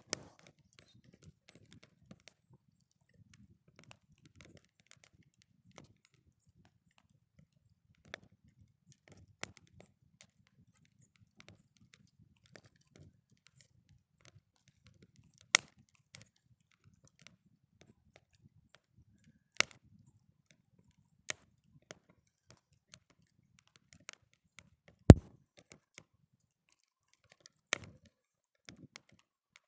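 Small wood campfire crackling, with a faint soft hiss and a dozen or so sharp pops at irregular intervals, the loudest about 25 seconds in.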